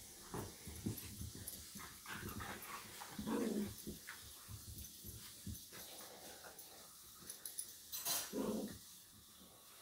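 Three small dogs play-wrestling, scuffling against each other and making short dog noises, the two loudest about three and a half and eight seconds in.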